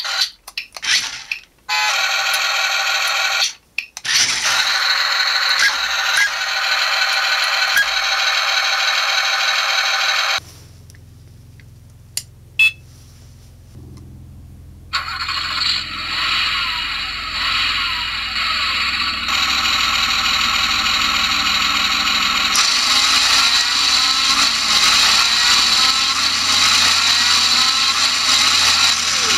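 Toy RC rock crawler's electric drive motors and plastic gearboxes whining. The whine stops and starts in the first few seconds, then runs steadily while the car drives. After a quieter pause with one click, the car lies upside down with its wheels spinning freely, and the whine rises and falls in pitch again and again.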